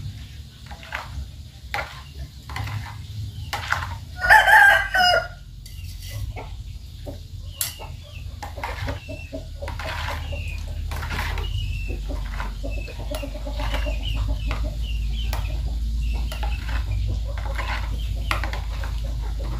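A chicken gives one loud call about a second long, four seconds in, then clucks softly now and again. Through it a metal spoon clicks against a plastic bowl as a liquid is stirred.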